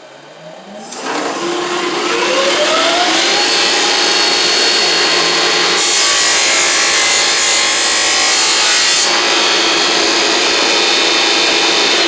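Shopsmith table saw's motor starting, its pitch rising for about two seconds, then running steadily. About six seconds in the blade cuts through a block of hard maple, a harsher, higher noise lasting about three seconds, and then the saw runs on freely.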